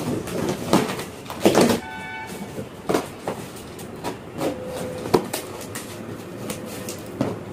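Box cutter slitting the packing tape along a long cardboard carton, and the cardboard flaps being scraped and pulled open: a run of sharp cracks and scrapes, with a brief high tone about two seconds in.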